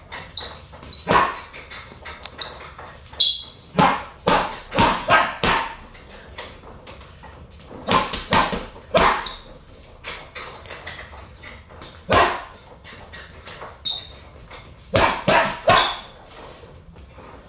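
Boxing gloves punching a hanging heavy bag in quick combinations: sharp smacks in clusters of two to four, with short pauses between.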